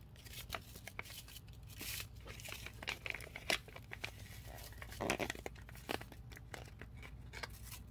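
Ranch seasoning packet crinkling and rustling as it is tipped and emptied into a glass jar, with many small scattered crackles.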